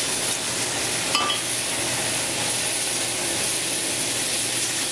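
White wine sizzling and hissing steadily in a hot skillet of chicken, onions, mushrooms and peppers as it boils off in steam, deglazing the pan. One short click about a second in.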